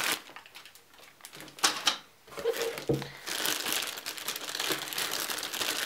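Clear plastic packaging bags crinkling and rustling as parts are handled in a cardboard box, with a few sharp clicks among the rustle.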